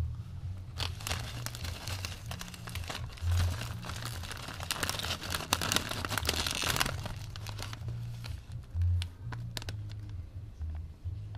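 Doritos chip bag crinkling and rustling as a hand digs through the chips, dense from about a second in until about seven seconds, then only a few scattered crackles. Low bass music runs underneath.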